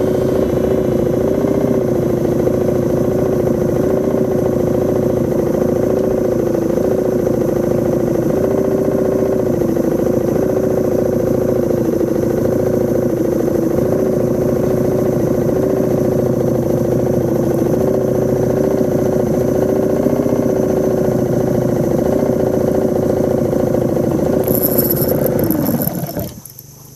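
Small 2.5 hp outboard motor running steadily at low trolling speed, its pitch wavering slightly, then shut off about a second before the end.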